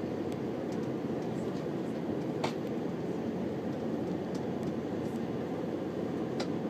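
Airbus A330 cabin noise while taxiing: a steady low rumble of the idling engines and rolling airframe, with a few light knocks, the clearest about two and a half seconds in.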